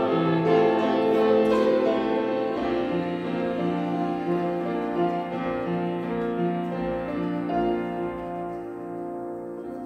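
Grand piano playing slow, held chords that gradually die away, growing quieter toward the end.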